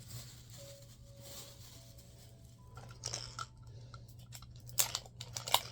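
Plastic wrapper of a Mini Brands capsule being crinkled and torn by hand, in short crackles that come more often near the end; the wrapper does not tear off cleanly.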